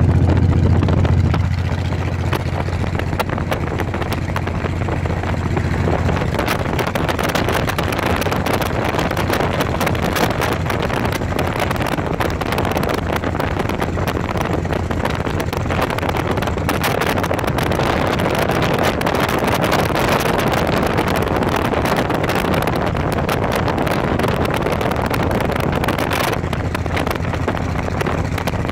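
Cruiser motorcycle riding at road speed: a steady engine drone under heavy wind noise buffeting the microphone, with tyre and road noise.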